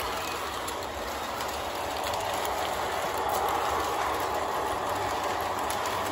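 O gauge model train running along the track: a steady whirring rumble from the motor and wheels, with light scattered clicks as the wheels pass over the rail joints.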